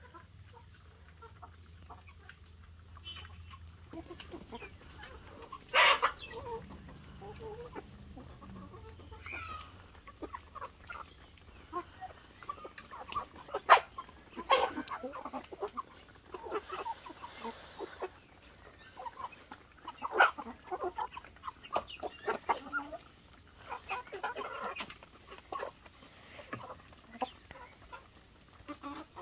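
A flock of hens with a rooster clucking intermittently while they feed, with scattered short calls and sharp clicks; the loudest click comes about 14 seconds in.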